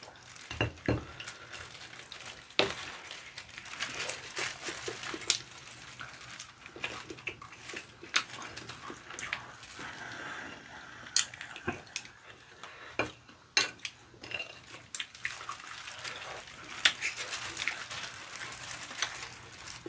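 Eating sounds of sauced fried chicken: chewing and wet crackling, with many sharp clicks of chopsticks against ceramic plates.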